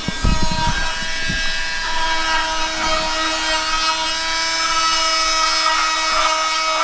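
Handheld power tool running with a steady whine of several held pitches as it cuts a plastic fan cover. A few low bumps sound in the first second or so.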